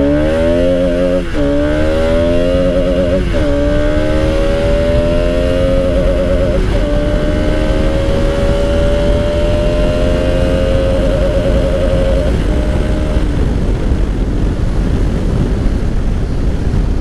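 Bajaj Pulsar RS200's single-cylinder engine accelerating hard through the gears under load. The pitch climbs, drops sharply at upshifts about a second and about three seconds in, with a smaller shift near seven seconds. It then rises slowly at high speed until the engine note fades out about thirteen seconds in, leaving a steady rush.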